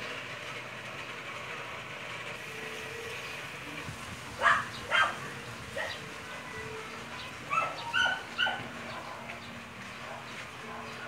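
A dog barking in two short runs of three barks each, the first run about four and a half seconds in and the second near eight seconds.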